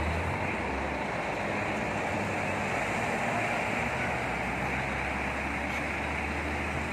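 Double-decker express coach's diesel engine running as the coach pulls away, a steady low rumble under an even hiss of noise.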